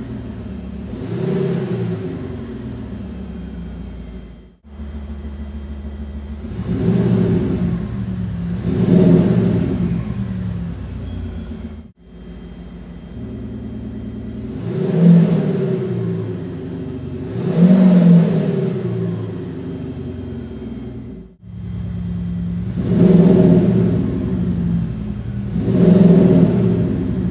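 Car engine sound played through a Kufatec Sound Booster, revved up and falling back twice in each of several short clips that cut off abruptly between them.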